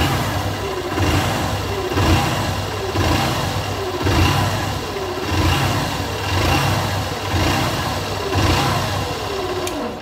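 Air-cooled motorcycle engine running with a growl ("roncado", "grunhido") that swells and falls about once a second. This abnormal engine noise is the fault that the mechanic ties to the battery going flat.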